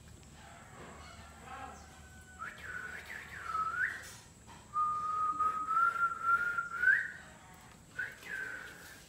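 A person whistling in high, clear notes. There are a few short whistles that flick upward, then one long whistle that slowly rises and ends with an upward flick, and one more short whistle near the end.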